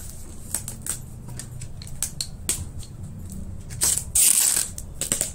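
Packing tape and plastic wrap being pulled and torn from a cardboard shipping box. Small clicks and crinkles come first, then a loud rip lasting under a second about four seconds in.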